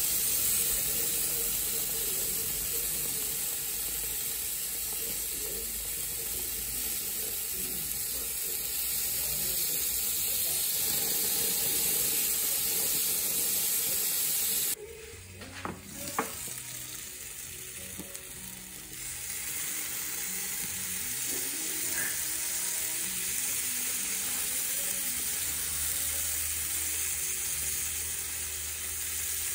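Chicken halves sizzling on a gas grill over open flames, a steady hiss of fat and basting sauce cooking. About halfway through the hiss drops away suddenly for a few seconds, with a couple of sharp clicks, then returns.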